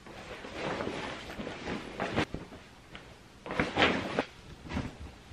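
Rummaging in a fabric gym bag: rustling and handling noise, with louder bursts about two seconds and four seconds in.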